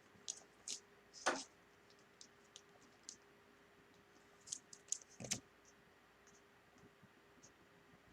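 Faint scattered clicks and light ticks of trading cards and their plastic holders being handled, with a louder tap about a second in and another about five seconds in.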